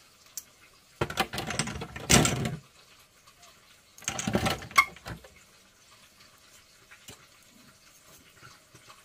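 Powdered ginger being shaken out of a spice container onto food in a glass bowl, in two bursts of shaking a few seconds apart.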